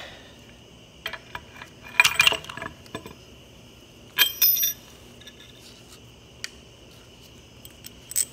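Metal parts knocking and clinking as the steel brake cover and its bolts are handled at the tractor's rear axle housing: a cluster of knocks about two seconds in, a ringing clank about four seconds in, and a few lighter taps.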